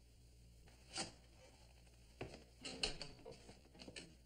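Faint paper rustling and light knocks as a letter is handled, with a few footsteps, loudest from about two to three seconds in.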